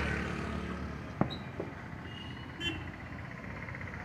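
Steady background noise, with one sharp crack about a second in and a softer click shortly after.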